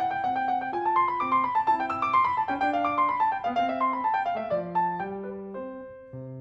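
Background piano music: a melody of single notes over lower held notes, climbing and then stepping back down, growing quieter near the end.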